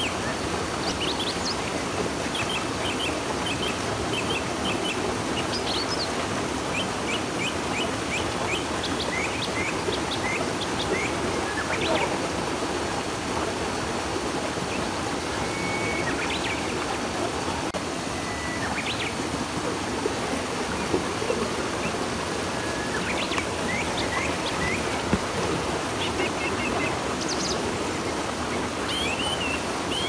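River water rushing steadily, with small birds chirping over it in quick series of short notes, busiest early on and again near the end.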